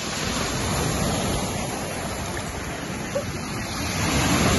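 Sea waves breaking and washing up onto a pebble beach, a steady rush of surf that swells about a second in and again near the end.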